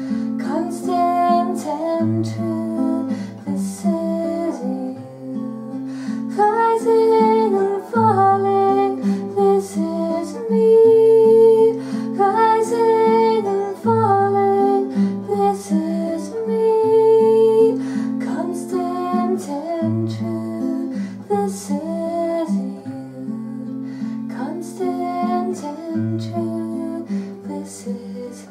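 Acoustic guitar strummed through a sequence of chords while a woman sings over it, holding some long notes.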